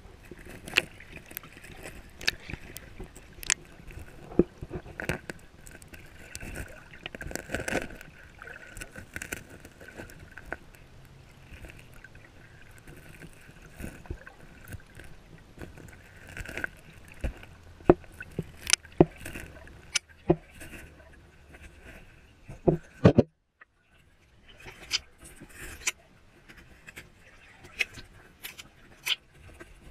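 Shallow brook water heard from a camera held underwater: a steady muffled rush with irregular clicks and knocks all through, cut by a brief gap of near silence about three-quarters of the way in.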